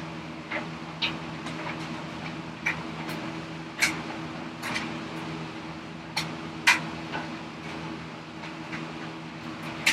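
Hand chisel cutting into dry, hard ash: a series of sharp, irregular clicks and snaps, about ten in all, as the edge shears through the wood fibres.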